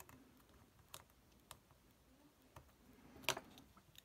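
Faint scattered clicks and scrapes of a plastic prying tool working at the ribbon-cable connectors of an iPhone 6S that is stuck and hard to lift, with one louder click a little past three seconds in.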